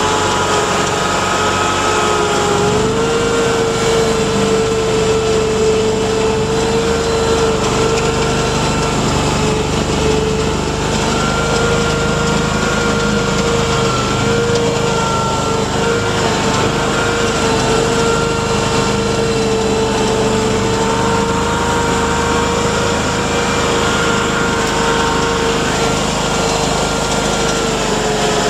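Mudd-Ox 8x8 amphibious ATV running on its tracks, heard on board: a steady engine drone with a strong whine that rises slightly about three seconds in and then holds.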